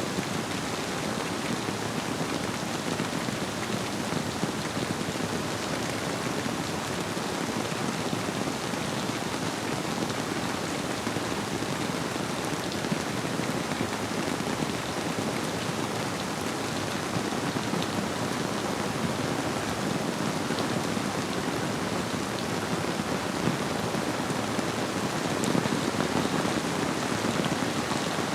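Steady rainfall: an even hiss of rain on surfaces with scattered fine drop ticks, swelling slightly near the end.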